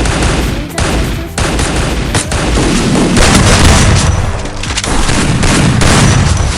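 Video-game gunfire and explosions: rapid, dense shots with heavy booms, building up about halfway through.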